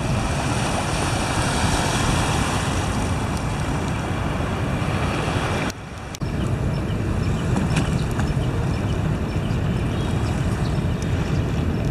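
Wind buffeting the microphone over the steady wash of calm sea water, dipping briefly about six seconds in.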